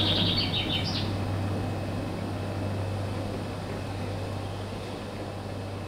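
Motorised overhead warehouse door running as it opens, with a steady low motor hum that slowly fades. A quick run of high chirps sounds in the first second.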